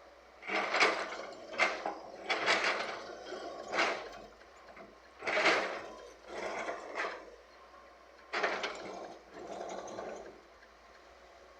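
Irregular bursts of scraping, rushing noise, about ten in all, each starting sharply and lasting up to a second: murram (earth and gravel) being scraped and poured by earthmoving machinery.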